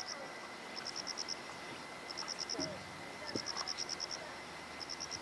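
An insect chirping outdoors in short bursts of rapid high pulses, about seven pulses per burst and a burst roughly every second and a half, over a faint steady high whine.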